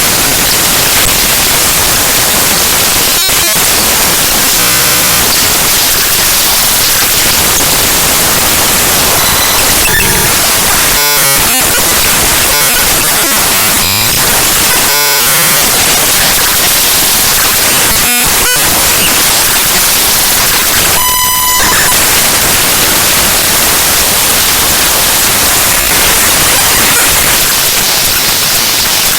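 Loud, harsh digital noise from the bytes of Windows' explorer.exe file played back as raw audio: continuous static broken by brief dips and short buzzy patterns, with a stack of steady tones about 21 seconds in.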